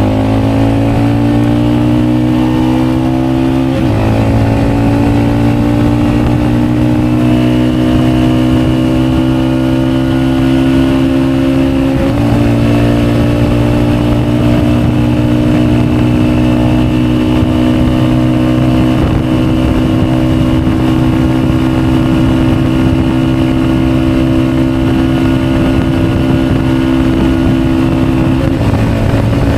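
Motorcycle engine accelerating hard through the gears on a top-speed run. The pitch climbs and drops sharply at two gear shifts, about four and twelve seconds in, then the engine holds high, nearly steady revs with a slight dip near the end.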